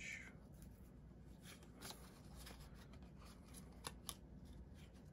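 Near silence: room tone with a few faint, short clicks and light rustling.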